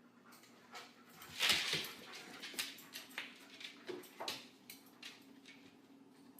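A dog whimpering, with a louder rushing noise about one and a half seconds in and scattered small clicks.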